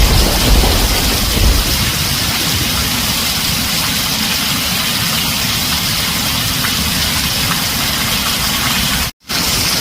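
Heavy rain falling steadily on a tin roof, with the tail of a low thunder rumble fading out over the first second or so. The sound cuts out briefly near the end.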